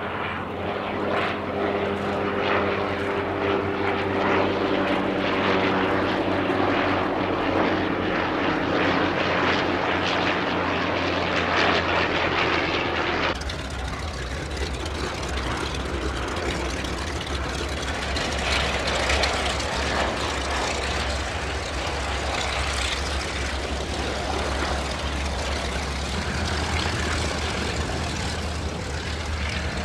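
Le Rhône rotary engine of a Bristol M1C monoplane in flight, a steady propeller-driven drone whose pitch slowly falls as the aircraft passes. About 13 seconds in the sound changes abruptly to a rougher, steadier engine drone with more hiss.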